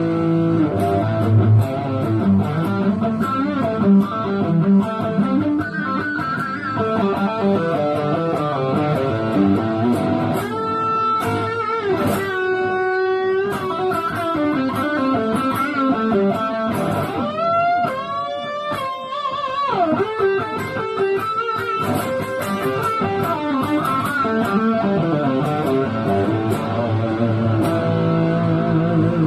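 Electric guitar solo over a band backing, with notes played in quick runs and, about halfway through, long notes bent upward and held with vibrato.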